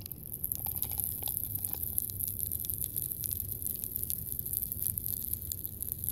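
Popping candy crackling in a cup of drink as it dissolves, heard close up: a dense, steady run of tiny sharp pops and crackles.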